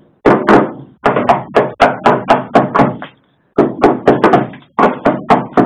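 Hammer blows on the steel bulkhead of a Jaguar E-Type 2+2, about four sharp strikes a second in two runs with a short pause about three seconds in.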